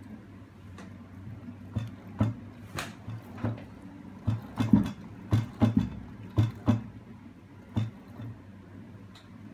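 Irregular metallic knocks and clacks, about a dozen, from a hand-rocked magnet lever mechanism: aluminium arms, spring-mounted neodymium magnet stacks and chain sprockets knocking as the arms are pushed back and forth. A steady low hum runs underneath.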